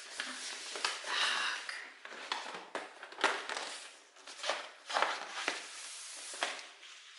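Rustling and crinkling of ribbon and packaging as a bow is pulled off a large cardboard gift box, with scattered small knocks from handling the box.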